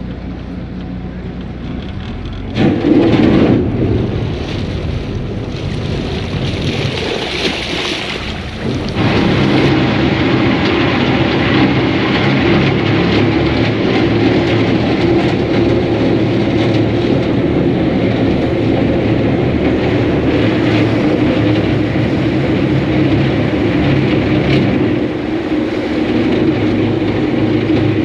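Venice vaporetto (waterbus) under way: its diesel engine drones steadily under the rush of churned water in its wake. The sound grows louder about three seconds in and again about nine seconds in as the boat speeds up into open water, then holds steady.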